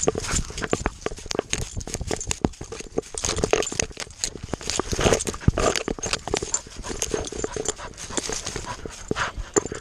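A dog moving through dry grass, heard from a GoPro on its chest: rapid, irregular knocks from its footfalls and the jostled camera, with dry grass rustling against it.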